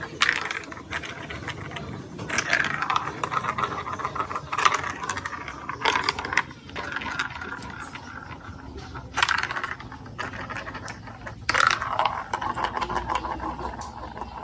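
Marbles rolling and clattering down a plastic building-block marble run: a running rattle of small clicks with louder bursts of clatter every couple of seconds.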